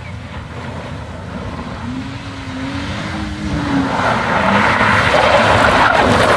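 BMW E46 3 Series saloon driven hard on a gravel stage, approaching and passing close. The engine note climbs and then dips, and the hiss of tyres and flung gravel swells to its loudest near the end.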